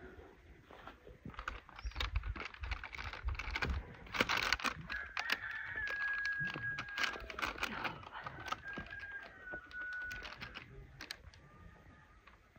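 Irregular light clicks, taps and paper rustles as a wooden honey-dipper handle presses dimples into dough balls on a parchment-lined metal baking tray, busiest in the first half. A rooster crows in the background through the middle.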